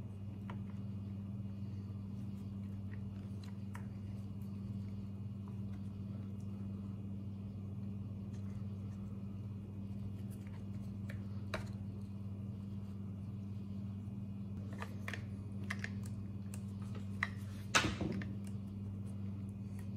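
Faint clicks of small plastic and metal chainsaw parts being worked loose with pliers, over a steady low hum. A louder knock and short clatter comes near the end, as the saw is turned over on the wooden bench.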